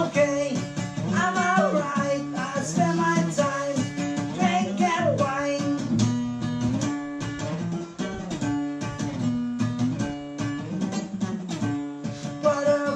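Acoustic guitar playing with a voice singing over it for about the first half; the guitar carries on alone for several seconds before the singing comes back near the end.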